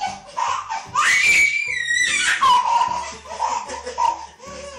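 A toddler laughing and squealing in high-pitched shrieks, loudest about one to two and a half seconds in.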